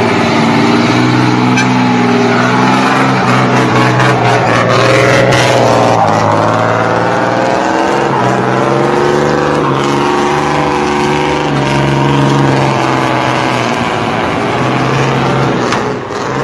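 Heavy diesel truck engine running hard under load. Its note drops and picks up again a few times.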